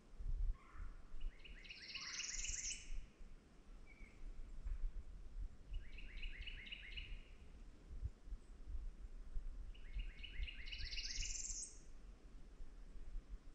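A songbird singing the same short phrase about every four seconds, three times. Each phrase is a quick run of repeated notes, and two of them end in a rising buzzy trill.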